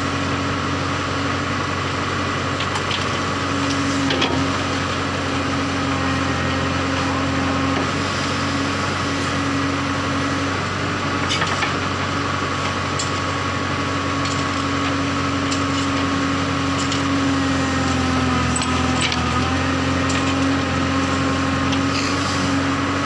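JCB 3CX backhoe loader's diesel engine running steadily under load, with scattered knocks and crunching as its bucket tips red soil into a tipper truck's steel body.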